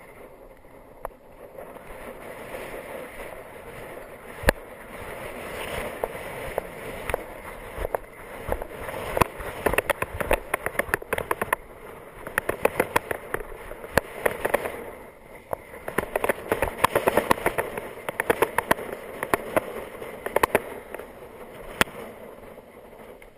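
Wind rushing over a handlebar-mounted camera's microphone on a fast road-bike descent, with frequent sharp clicks and knocks from the bike and camera mount jolting over the road surface, thickest from about a third of the way in until near the end.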